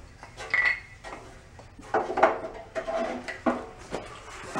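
Metallic clinks and knocks as a starter rope is wound onto the flywheel pulley of an air-cooled single-cylinder engine, in readiness for a rope start. There are several separate knocks, the loudest about two seconds in.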